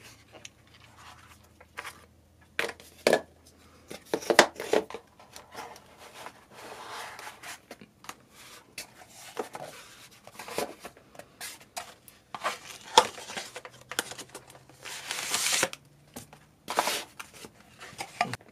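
Hands unpacking a cardboard product box with a foam insert: parts, small boxes and a manual lifted out and set down on a cardboard surface. Scattered taps and knocks, with a few longer rustling scrapes of cardboard and paper, the loudest about fifteen seconds in.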